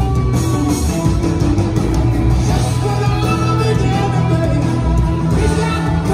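Live rock band playing: several electric guitars, keyboards and drums, with a man singing lead.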